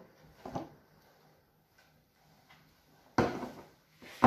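Fox terrier shaking its head, with its ears freshly glued, about three seconds in: a sudden noisy burst that fades over about half a second. A faint short knock comes shortly after the start.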